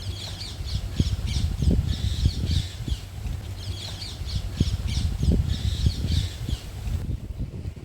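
Birds squawking in rapid chattering bouts of quick high notes, over a steady low rumble with scattered knocks.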